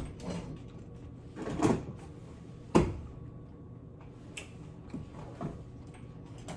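A few separate knocks and clunks of objects being handled and set down on a table, the sharpest about three seconds in, then smaller taps.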